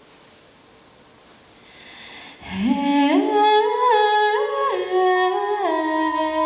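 Faint hiss swells. About two and a half seconds in, a slow wordless melody begins, hummed by a voice: it slides up from a low note and then steps between held notes with glides in between.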